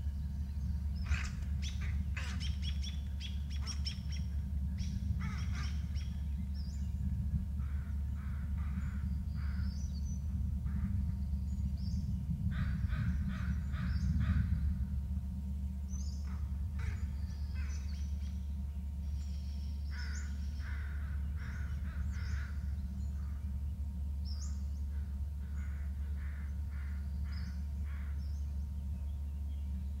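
Crows giving unusual calls in quick runs of short notes, repeated in several bouts, with higher chirps of small birds and a steady low hum beneath.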